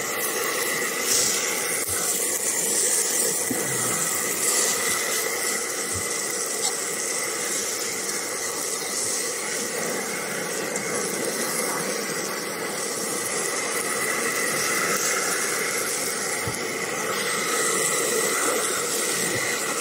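Steaks, mushrooms and onion slices sizzling steadily on a hot cast-iron pan.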